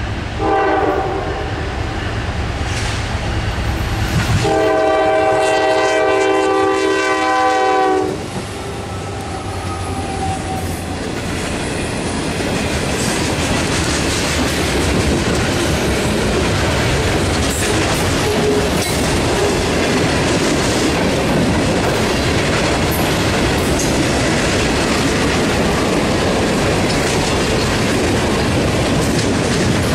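Diesel freight locomotive sounding its horn, a short blast and then a longer one about four seconds in, over a low engine rumble as it approaches. Then freight cars roll past close by, wheels clacking steadily over the rail joints.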